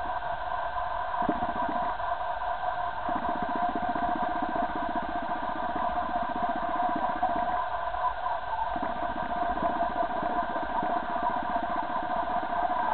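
A steady mechanical hum holding several fixed tones. A lower, evenly pulsing rumble joins it in stretches and drops out in between.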